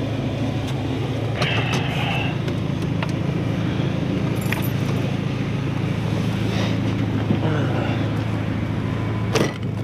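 Jeep Wrangler engine running steadily, with a few light clicks and rattles, a short squeak early on and a sharp knock near the end.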